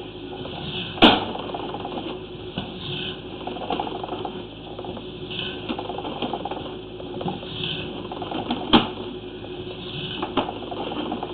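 Sewer inspection camera's push cable being pulled back out of the line: a continuous mechanical rattle, with sharp knocks about a second in and again near the end.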